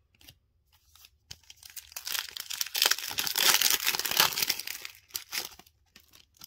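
A Panini Fortnite Series 3 trading card pack being torn open by hand. Faint crackles lead into about three seconds of loud crinkling and tearing of the wrapper from roughly a second and a half in, which tapers to a few last crackles near the end.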